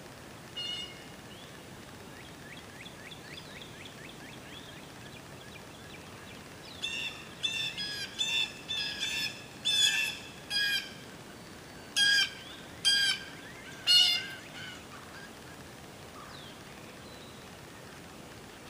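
A bird calling: a run of about ten loud, short calls in the middle, with one short call near the start and faint, quick notes from another bird between them.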